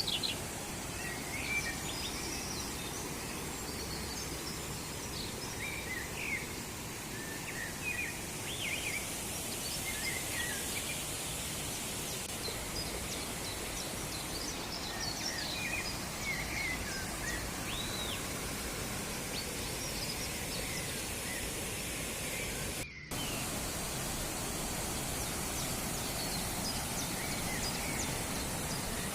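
Steady rushing of a waterfall, with birds chirping now and then over it through most of the stretch.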